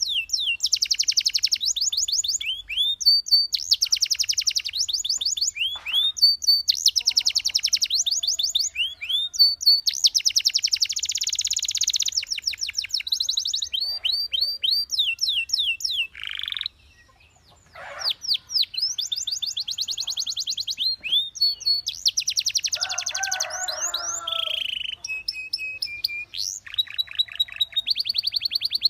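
Belgian canary singing a long, fast song: rapid trills of repeated high, downward-sweeping notes run together into rolls, with a short break about two-thirds of the way through.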